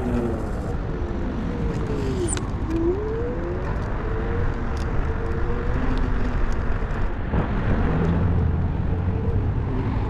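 A car driving, with steady road and engine rumble; its engine note drops and then climbs again about two to three seconds in, and a steady low hum comes in near the end.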